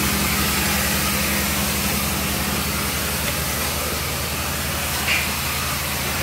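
Steady engine-like machine hum under an even, loud hiss, with one short tick about five seconds in.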